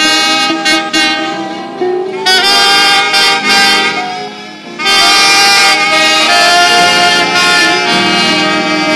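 Alto saxophones playing a melody in phrases of held notes, with a short dip just before a louder, sustained passage about five seconds in.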